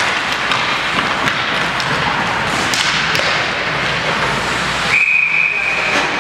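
Ice rink game noise of skates scraping and sticks and puck clacking, then about five seconds in a referee's whistle sounds once, a steady shrill tone held for about a second, stopping play.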